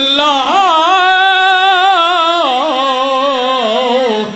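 A man singing one long, drawn-out line of a sermon's chanted verse into a microphone, holding wavering notes with heavy vibrato; the pitch rises about half a second in and sinks away near the end.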